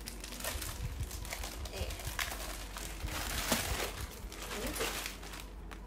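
Thin plastic packaging bag crinkling and rustling as it is pulled open and handled, in irregular crackles that are loudest a little past the middle.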